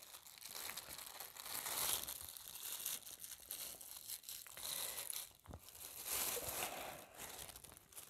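Thin plastic bags crinkling and rustling as they are untied and handled by hand, with a single knock about five and a half seconds in.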